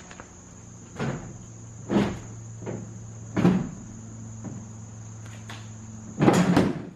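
Clacks and knocks of quick-release splitter mounts being unlatched and the splitter being pulled off: three separate clacks, then a louder, longer rattle near the end. A steady low hum and a thin high whine run underneath.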